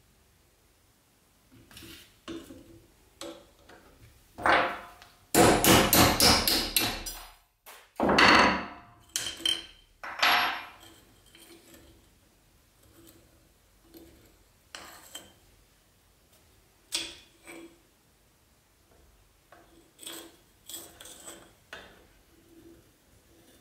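Metal tools knocking on a steel anvil while the pins are driven out of a knife's wooden handle scales: a loud, rapid run of strikes about five seconds in, a couple of heavier knocks after it, then lighter clicks and clinks as the loosened scales and the rusty tang are handled on the anvil.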